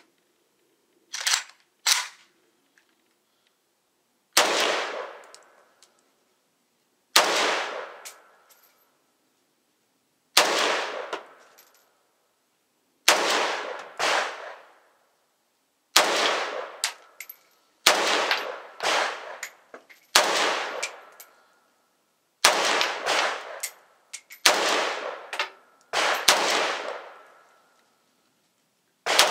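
Norinco MAK-90, a semi-automatic 7.62x39mm AK-pattern rifle, fired shot by shot: about a dozen sharp gunshots, mostly two to three seconds apart, each trailing off in a long echo. A faint ringing tone lingers after several of the later shots.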